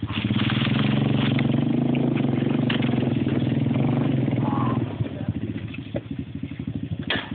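ATV engine revving hard under load for about five seconds, then dropping back to a lumpy idle, with a brief sharp noise near the end.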